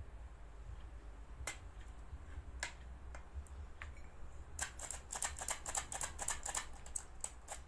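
Hand-operated stainless steel flour sifter being worked over a bowl, its mechanism clicking as flour is sifted. A few separate clicks come first, then about halfway through a quick, even run of rattling clicks, about six a second.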